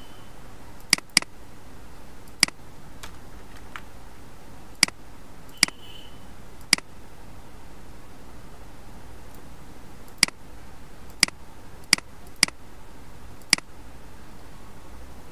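Computer mouse clicking: a quick double-click about a second in, then single sharp clicks at uneven intervals, about eleven in all, over a steady faint background hiss and hum.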